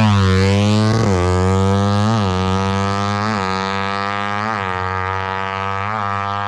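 Small drag-racing motorcycle engine at full throttle, pulling away through the gears: the revs climb and dip at each shift, about once a second, five times, as it fades into the distance.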